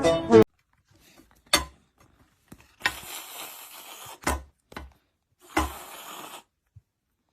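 Music cuts off, then about five sharp knocks over some five seconds, two of them followed by a second or so of rustling hiss.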